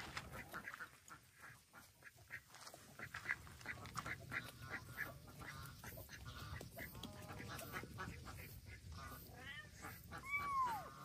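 A small flock of ducks calling softly with short quacks as they walk. About ten seconds in comes one longer call that rises and then falls in pitch.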